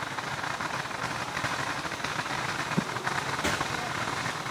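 Ground fountain firework spraying sparks: a steady hissing crackle, with two sharper pops about three seconds in.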